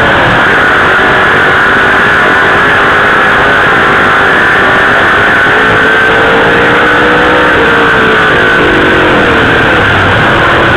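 Dirt late model sportsman race car engine at racing speed, heard from the onboard camera inside the car: loud and unbroken, its pitch climbing slowly through the middle and dropping back about eight seconds in.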